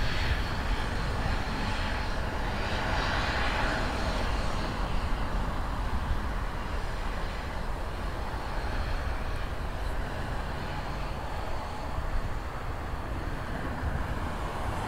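Jet airliner engines running steadily, heard across the airfield, a broad even hum with a low rumble of wind on the microphone.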